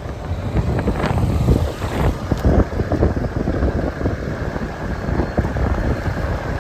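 Low rumble of a moving vehicle with wind buffeting the microphone in irregular gusts.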